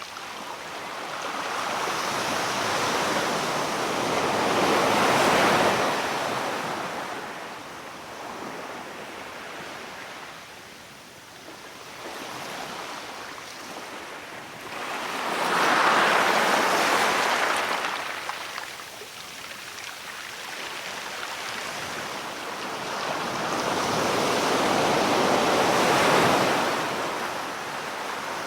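Sea waves washing onto the shore in three slow surges, each building for a few seconds and then falling back to a quieter wash.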